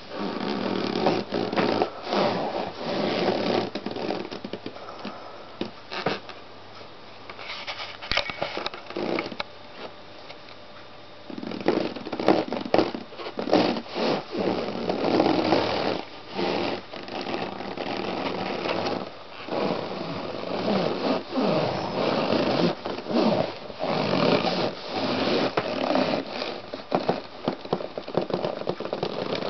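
Latex balloons squeaking and rubbing as a foot presses and treads on them, the stretched rubber creaking against itself and the fabric underneath, with a quieter lull about a third of the way in.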